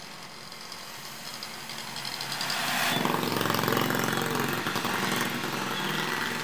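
A vehicle engine running close by, growing louder over the first three seconds, then holding and easing slightly near the end.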